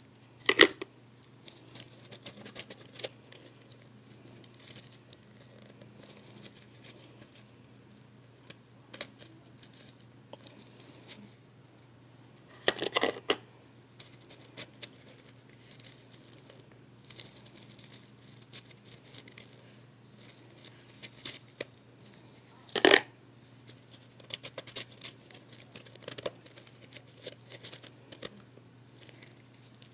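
Soft blended ice, pressed into small chunks, crunching. There are three loud crunches about ten seconds apart, each followed by a run of lighter crackling.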